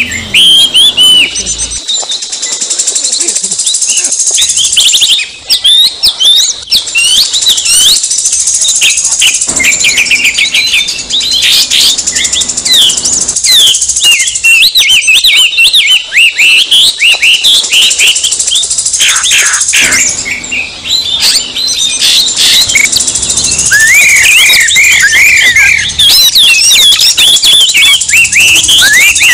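Oriental magpie-robins singing an agitated territorial song: a dense, overlapping run of fast rising and falling whistles and chatter, with short lulls about five and twenty-one seconds in.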